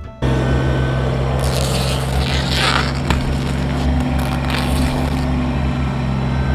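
Kubota BX23S compact tractor's three-cylinder diesel running steadily under load, with scraping and tearing as the loader forks rip sod and landscape fabric out of the ground, loudest between about one and a half and three seconds in, and a sharp click near the middle.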